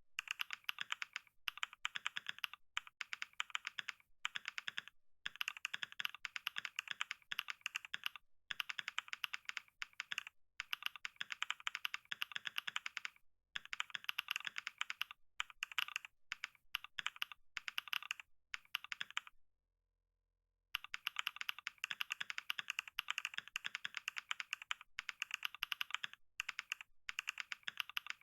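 Fast typing on a computer keyboard: rapid keystrokes in runs separated by brief pauses. The clicking stops completely for about a second and a half, roughly two-thirds of the way through.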